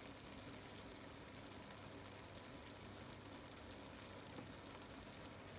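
Faint, steady sizzling from a pot of biryani cooking on a low flame.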